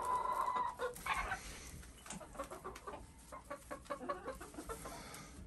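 Flock of laying hens clucking quietly, one holding a long, steady call for about the first second. Light scratching and ticks follow, from birds pecking in the wood-shaving bedding and at the feeders.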